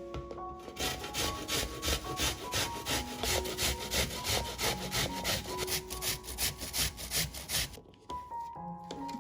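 Rhythmic scraping strokes, about three a second, stopping near the end, over background music with sustained keyboard-like notes.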